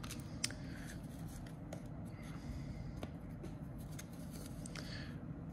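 Baseball trading cards being flipped and slid through the hands one after another: faint scattered clicks and rustles of card against card over a low steady room hum.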